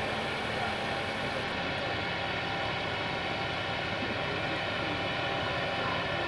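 Diesel engine of a TAKRAF EDK-1000 heavy rail crane running steadily, a constant drone with no change in speed.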